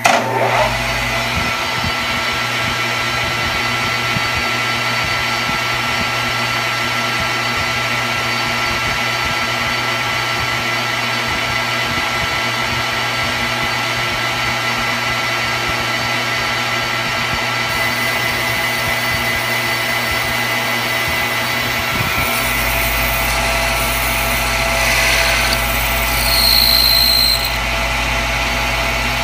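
Metal lathe running, a steady machine whine with electrical hum, as an O-ring groove is cut into an anodized aluminium ring with a carbide boring tool. A deeper hum comes in about two-thirds of the way through. Near the end the sound swells, with a brief high-pitched squeal from the cut.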